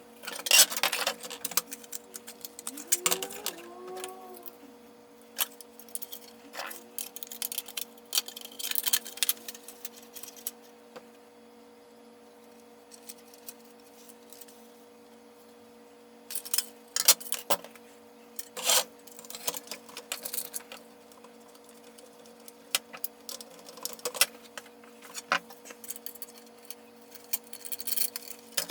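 Hard plastic parts of a vintage Kenner Slave 1 toy clicking and clattering as the ship is being taken apart. The clicks come in irregular runs with a lull in the middle, over a steady low hum.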